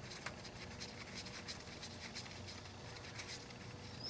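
Faint scattered clicks and light scratching as a gloved hand handles a car's ignition coil after its bolt has been removed.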